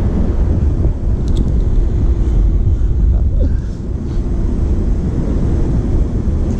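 Wind buffeting the microphone of a body-worn action camera: a steady low rumble.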